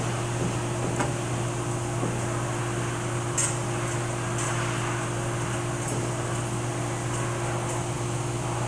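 Steady mechanical hum with a few light metallic clinks, about a second and three to four seconds in, as steel clutch plates from an automatic transmission are handled.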